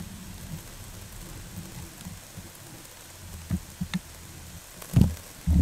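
Water spraying from homemade irrigation sprinklers, an even hiss over a steady low rumble. Several short low thumps come in the second half, the loudest about five seconds in.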